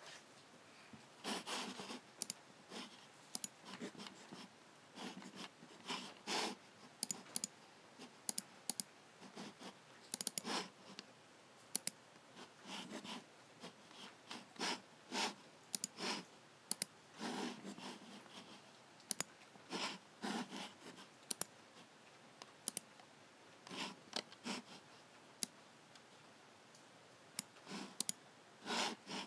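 Logitech (Logicool) G7 computer mouse buttons clicking at an irregular pace, some single clicks and some in quick pairs, mixed with softer, slightly longer scuffing sounds.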